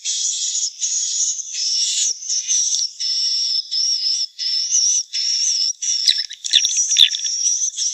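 Swiftlets twittering: a run of high, buzzy chirping phrases with short gaps between them, more broken and clicky near the end. It is a swiftlet call recording of the kind played to draw the birds into a nesting house.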